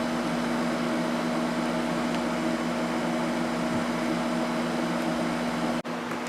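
Room air conditioner running: a steady fan rush with a hum of several steady tones. It cuts off abruptly near the end and is replaced by a quieter, even whoosh.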